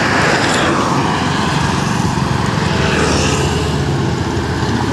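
Road traffic on a highway: a vehicle goes past in the first second, its tyre and engine noise falling in pitch, over a steady low hum of traffic.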